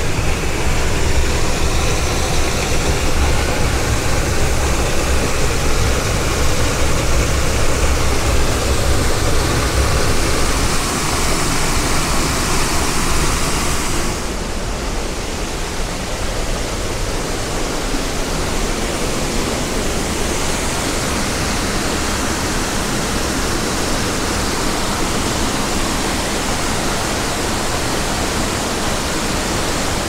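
Steady rushing roar of the Düden River's upper waterfall. It is deeper and rumbling in the first half, then about halfway through it suddenly becomes a little quieter and duller.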